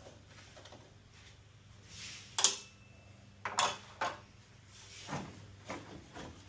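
Hard parts being handled while a truck's turn signal and headlight housings are taken off: a few sharp clicks and knocks, the loudest about two and a half seconds in.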